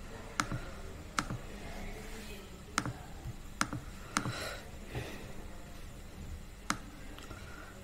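Computer mouse clicking: about six sharp single clicks at irregular intervals.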